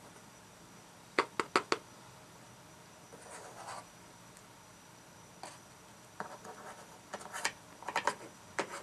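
Wooden spoon stirring a boiling fig jelly mixture in a metal saucepan: sharp knocks of the spoon against the pan, four in quick succession just after a second in and more in clusters in the second half, with a scraping stretch around three seconds in.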